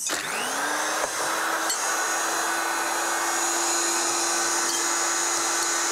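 Personal bullet-style blender motor starting up with a rising whine, then running steadily as it grinds toasted bread and parsley into crumbs.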